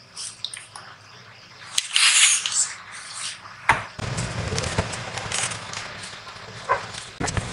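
Small hand iron sliding and pressing on a folded cotton strap with soft hissing swishes, then a knock a little over halfway through and rustling as the fabric strip is handled.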